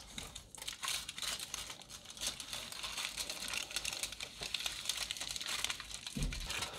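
Aluminium foil crinkling and crackling steadily as it is folded by hand around a resin-soaked wood blank.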